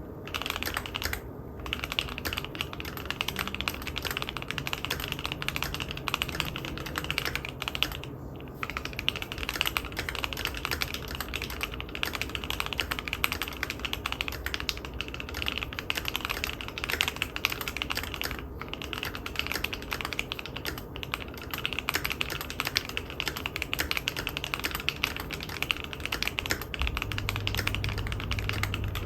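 Continuous typing on a Keychron Q1 mechanical keyboard with lubed and filmed Gateron CJ switches and PBT keycaps on an aluminium plate. The keystrokes come in a dense, steady stream with a few brief pauses.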